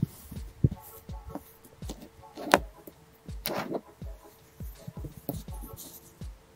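Fingertips pressing into and crumbling slices of kinetic sand right at a foam-covered microphone: soft knocks and thumps, with two louder crumbly rustles about two and a half and three and a half seconds in.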